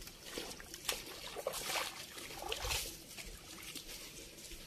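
Footsteps splashing through a shallow stream in flip-flops, a series of splashes over the first three seconds, then the stream trickling more quietly.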